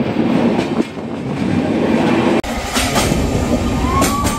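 Passenger train running on the rails, its carriage wheels clicking over the rail joints. About two and a half seconds in, the sound changes abruptly to a louder, deeper rumble with sharp knocks and a high held tone near the end.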